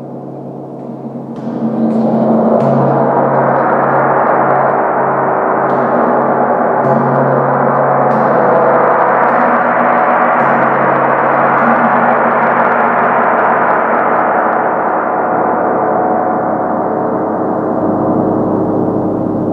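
Large chau gong played with a soft mallet in repeated gentle strokes. About a second and a half in, it swells into a loud, sustained wash of overlapping tones over a pulsing low hum, easing off slightly near the end.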